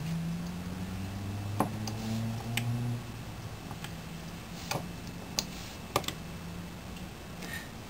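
A low steady hum, stronger in the first three seconds, with about five sharp, isolated clicks scattered through it.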